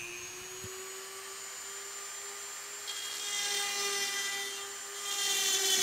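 Handheld rotary tool with a small carbide burr running at a steady high whine while grinding away an arch of aluminium wing skin. About three seconds in the cutting turns harsher and louder as the bit bites into the metal.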